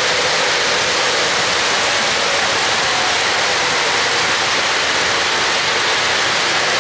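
O-gauge model freight train rolling over three-rail track: the metal wheels make a steady, loud rushing noise.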